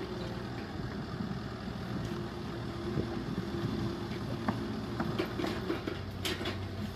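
Small gasoline long-tail boat engine idling steadily, with a few light knocks in the second half.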